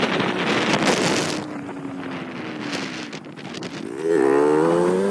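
Wind buffeting the microphone, with an auto-rickshaw engine passing close by, its pitch falling as it moves away.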